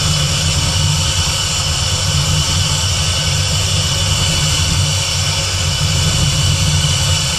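Fox-body Mustang's swapped-in Terminator Cobra supercharged 4.6-litre DOHC V8 idling steadily while its cooling system is burped of air. A deep, even rumble runs under a steady high-pitched hiss.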